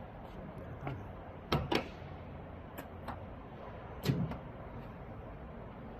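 A few sharp knocks and clacks, like a door or cover being handled: two close together about a second and a half in, and a louder one about four seconds in. A steady background hiss runs under them.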